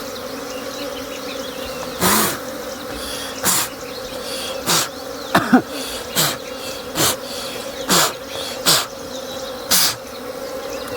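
A swarm of wild honeybees buzzing in a steady hum. Over it come about ten short, loud rasping noises, roughly one a second, each dropping in pitch.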